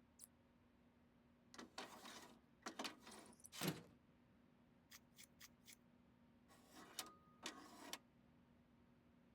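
Quiet handling sounds: two spells of scattered clicks, light knocks and rustling, the loudest a single knock a little under four seconds in, over a faint steady hum.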